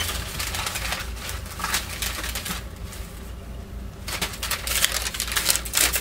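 Shopping bag rustling and crinkling as hands rummage through it, a run of quick crackles that eases off about two and a half seconds in and picks up again, denser, about a second later.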